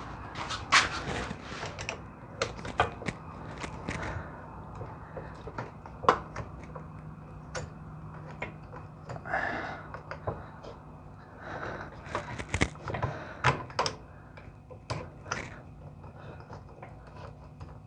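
Irregular metal clicks, clinks and knocks of a wrench and hand tools being worked on an old steering wheel knob's mount to take it off, with a scrape about halfway through.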